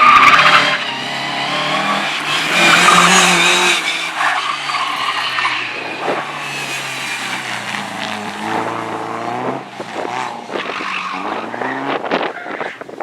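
Slalom race car driven hard through the cones, its engine revving up and down between throttle and lift while the tyres squeal through the turns. It is loudest in the first few seconds and fades near the end.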